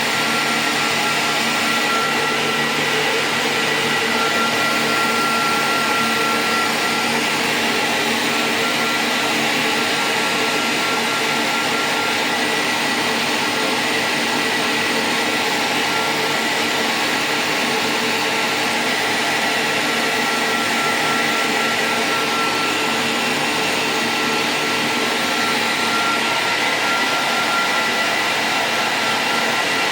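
Cooling fans of a repaired 2000-watt IPL epilation device power supply running on test: steady air noise with a thin, high, steady whine.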